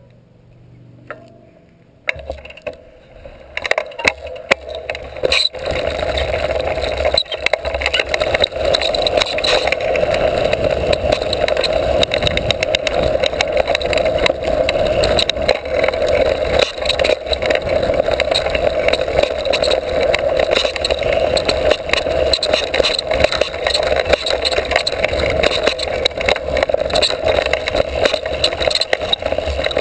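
Mountain bike ridden fast down a dirt trail: a steady rush of wind and tyre noise with constant rattling from the bike over bumps. It is quiet at first, builds over the first few seconds and is loud from about six seconds in.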